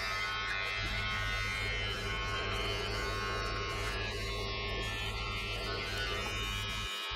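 Braun BT5265 electric trimmer buzzing steadily as it clips the hair on a man's head.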